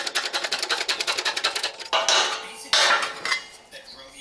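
Rapid metallic clicking, about eight to ten a second, as the bottle jack of a hydraulic shop press is worked, stopping about two seconds in. Then two short scraping clatters of steel as the die and the freshly pressed sheet-steel patch are lifted off the press.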